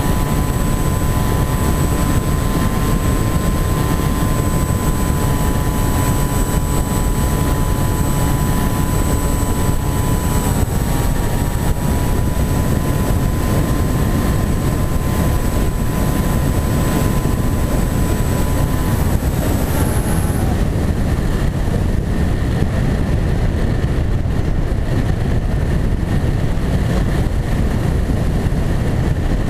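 Flying-wing RC model's motor and propeller whining steadily under heavy wind rush on the onboard camera's microphone; the whine dips slightly about ten seconds in and stops about two-thirds of the way through, leaving only the rushing wind as the model glides.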